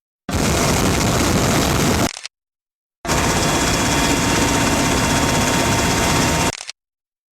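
Helicopter noise, a loud steady rush with faint steady tones. It comes in two stretches that start and stop abruptly, with dead silence between them and again near the end.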